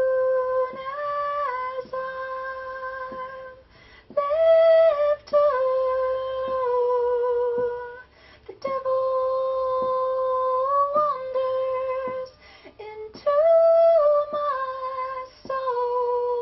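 A woman singing solo in long held notes, mostly on one pitch with small steps up and back, in four phrases with short breaths between them.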